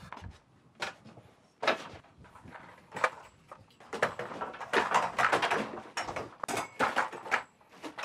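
Lighting tripod stand and LED light panel being handled and set up: a string of irregular knocks, clicks and rattles from the stand's legs and fittings, loudest about two seconds in and again past the middle.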